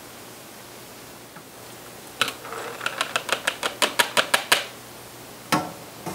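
A metal hand strainer tapping against a plastic canning funnel on a glass jar, shaking cooked navy beans through into the jar. There is one clink about two seconds in, then a quick run of about a dozen sharp taps, several a second, over a second and a half, and one more clack near the end.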